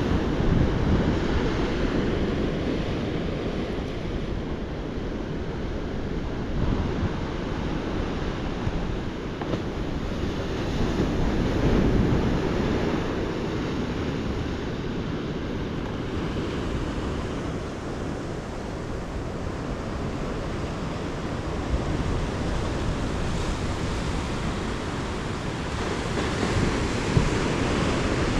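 Atlantic ocean surf, a steady low rush of breaking waves that swells and eases, louder about twelve seconds in and again near the end. Wind buffets the microphone over it.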